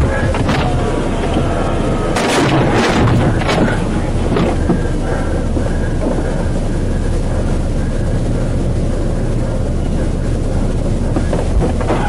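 Steady drone of a patrol car's cabin, engine and road noise while it is moving. There are a few short clicks and rustles in the first few seconds.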